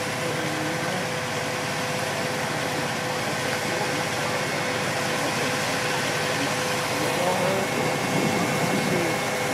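Fire engines idling in a steady drone, with a constant tone held above it and faint voices coming and going in the background.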